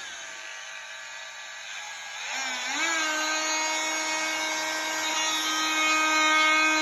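Dremel oscillating multi-tool switched on, running with a steady high whine. About two and a half seconds in its tone shifts and it grows louder, then holds steady.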